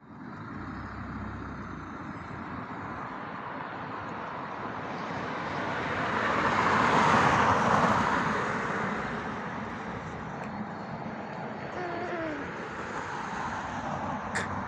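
Road traffic noise, with one vehicle passing by: the sound swells to a peak about halfway through and then fades away.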